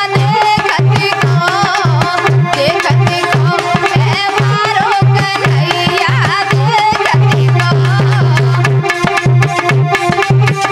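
Lively Indian folk dance music: a hand drum plays a fast, steady beat with a pulsing low bass stroke, under a wavering melody line.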